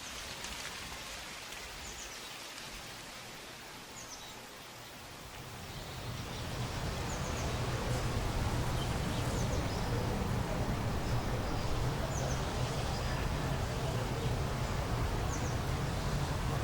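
Outdoor night ambience: a steady hiss with a short high chirp from a small animal repeating every second or two. A low hum swells in about five seconds in and holds.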